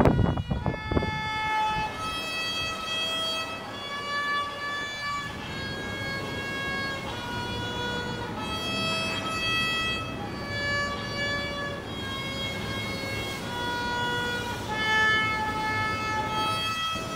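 Solo violin played by a six-year-old: a simple melody of separate bowed notes, each held about half a second to a second. A few low thuds in the first second or so.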